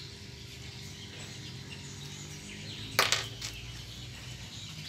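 Faint birds chirping over a steady low hum, then about three seconds in a short clatter of three or four quick knocks on a wooden tabletop as a baby monkey scrambles across it.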